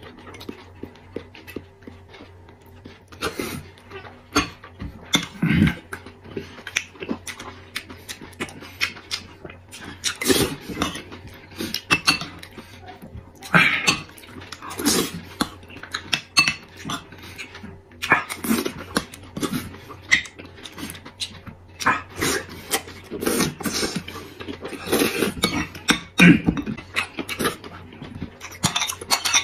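A person eating close to the microphone: wet chewing, slurping and lip-smacking in irregular bursts, with now and then a spoon clinking against a ceramic bowl.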